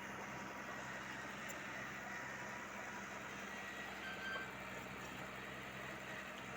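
Diesel engine of a BEML BD-50 crawler bulldozer running steadily, a low even drone with no change in speed.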